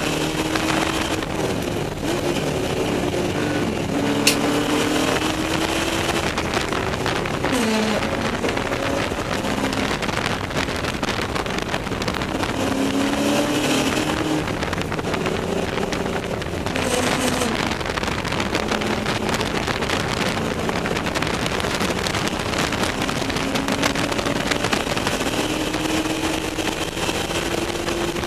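Ford Mustang race car's V8 engine heard from inside the cockpit at racing speed, its pitch repeatedly climbing through the revs and falling at shifts and braking, over a constant wash of wind and road noise.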